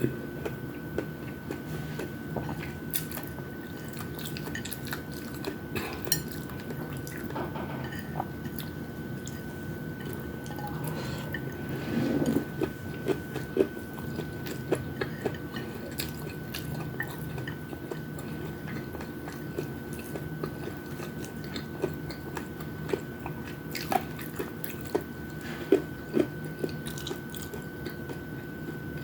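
Close-miked chewing and biting of fried chicken wings and rice, with wet mouth sounds and small scattered clicks. A brief louder low sound comes about twelve seconds in, over a faint steady high whine.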